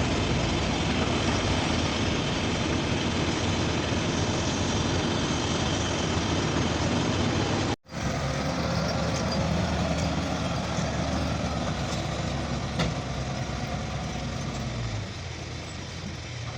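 Heavy diesel machinery running steadily. The sound cuts out for an instant about eight seconds in, and there is a single sharp click near the end.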